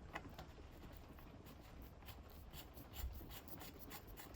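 Faint scraping and light ticks of a BBB crank puller being threaded by hand into the extractor thread of a square-taper SRAM crank arm, with a small knock about three seconds in.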